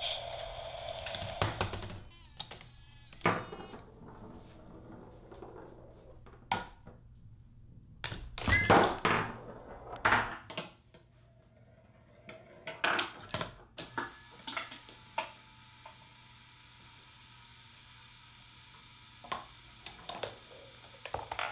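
Tabletop Rube Goldberg chain-reaction machine running: a string of separate knocks, clicks, rattles and thunks as small objects fall, slide and strike one another, with the loudest knocks near the middle and quieter gaps between. A steady electronic beep cuts off about two seconds in.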